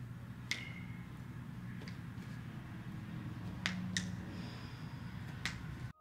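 Toe joints popping as a chiropractor pulls and adjusts the phalanges of a patient's toes: about five sharp cracks at uneven gaps, over a low steady room hum.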